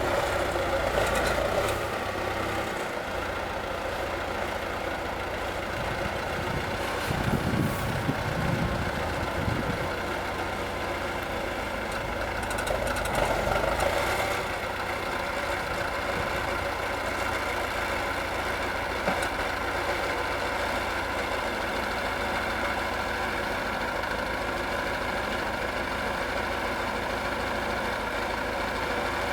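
T-40AM tractor's air-cooled four-cylinder D-144 diesel running steadily, swelling louder a few times.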